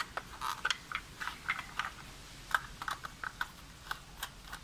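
Irregular light clicks and taps as hands work wires into the terminals of a changeover switch in a plastic enclosure, with a screwdriver coming to a terminal screw near the end.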